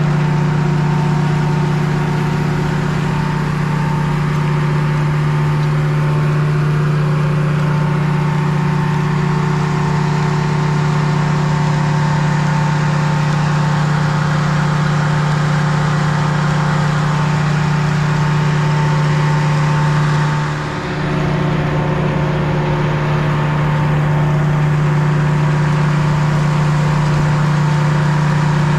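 Sawmill engine running steadily under load as a log is sawn, a constant hum with a higher whine, dipping briefly about twenty seconds in.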